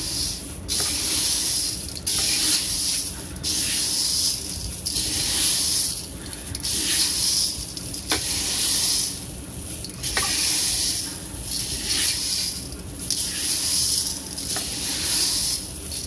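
Dry chickpeas, kidney beans and other pulses being stirred by hand in an aluminium pot: a hissing rustle of grains that swells and fades with each stroke, about once a second.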